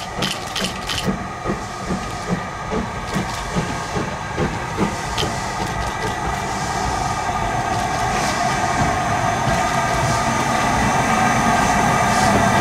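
Steam-hauled train running on the line. A regular beat of about two to three strokes a second fades out over the first few seconds. A steady rumble and hiss then grows gradually louder toward the end.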